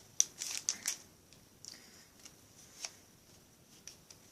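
Crinkling of a foil booster-pack wrapper and a stack of trading cards being handled in the first second, then a few faint, scattered clicks and rustles.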